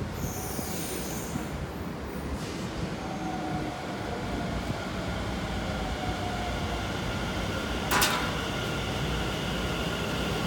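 Taoyuan Airport MRT train pulling into the station platform, its running noise slowly growing louder as it approaches, with faint steady motor tones. A short sharp burst of noise sounds about eight seconds in.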